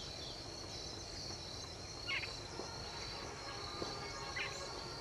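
A steady, high-pitched drone of insects, with two short bird calls, one about two seconds in and one near the end.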